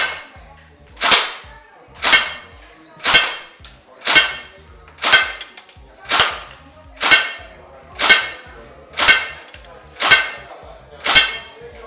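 WE/Cybergun Thompson M1A1 gas blowback airsoft gun firing single shots on green gas, evenly paced at about one a second. Each shot is a sharp crack that dies away quickly.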